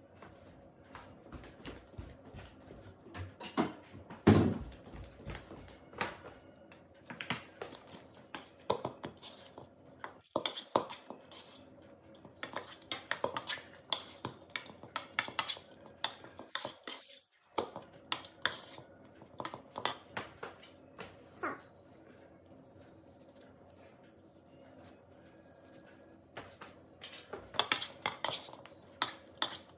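Plastic rice paddle scraping and knocking against a plastic mixing bowl as cooked rice is stirred: irregular clicks and scrapes, with one louder thump about four seconds in.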